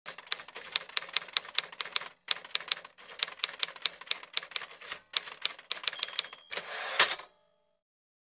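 Typewriter sound effect: a run of mechanical keystrokes, about two to three a second with short pauses between words. Near the end comes a short ring, then a carriage-return slide ending in a clunk.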